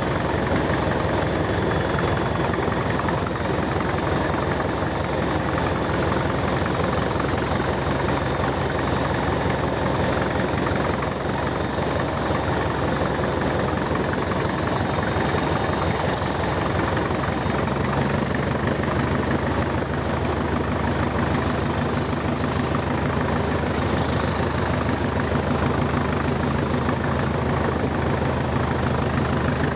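Class 20 diesel locomotive's English Electric engine working steadily under load on a climb, a continuous heavy drone with a thin high whistle that slowly rises in pitch. The deep engine note strengthens a little after about two-thirds of the way through.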